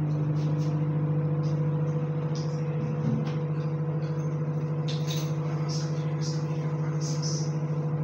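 Microwave oven running: a steady electrical hum from its transformer and fan, with a few faint light clicks from about five seconds in.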